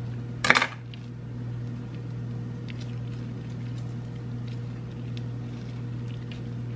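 A kitchen knife is set down with a short metallic clatter about half a second in. Then a hand squeezes a halved orange, and the juice drips faintly onto cranberries in a stainless steel bowl over a steady low hum.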